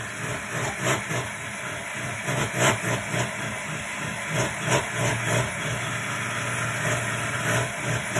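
Electric hand mixer running, its beaters churning thick cheesecake batter. Irregular knocks and scrapes ride over the steady motor hum as the beaters strike the side of the bowl.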